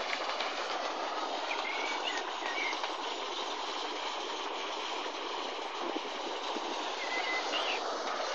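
Steady running noise of a passing motor cargo barge on the river, even and unbroken, with a few short bird chirps at about two seconds in and again near the end.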